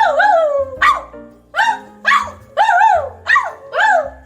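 A person imitating a dog, giving a quick run of high, yapping barks at about two a second.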